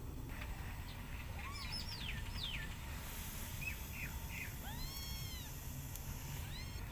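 Newborn kittens mewing: a series of short, high-pitched mews, with one longer rising-then-falling mew about five seconds in.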